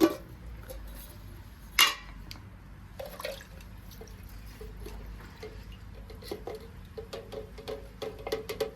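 Small carburetor parts being handled and taken apart: scattered light clicks and clinks of metal pieces, with one sharp knock a little under two seconds in and a run of quick clinks near the end.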